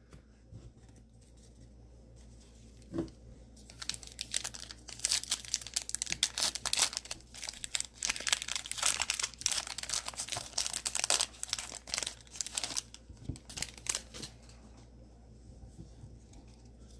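Plastic wrapper of a trading-card pack being torn open and crinkled by hand, a dense crackling stretch of several seconds, with a soft knock before it starts and another after it ends.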